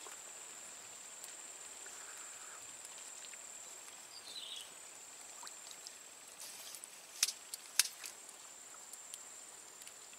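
Steady high-pitched insect trill, with a short chirp about four seconds in and two sharp clicks about seven seconds in, half a second apart.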